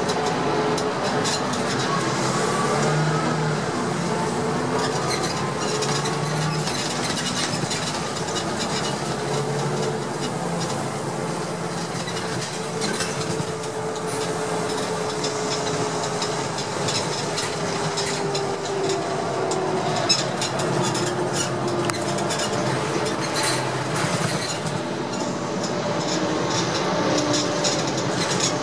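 Heuliez GX417 city bus heard from inside while under way: a steady engine and driveline drone whose tone slowly rises and falls in pitch as the bus speeds up and slows. Seats and interior panels rattle and click throughout, with one sharper knock about two-thirds of the way through.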